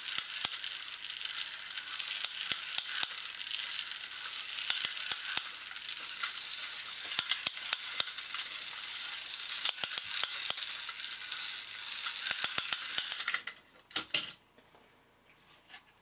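A small yellow TT gear motor running a 3D-printed plastic gear train and cam mechanism: a steady whirring hiss with bursts of clicking about every two and a half seconds. It stops near the end, followed by a couple of clicks.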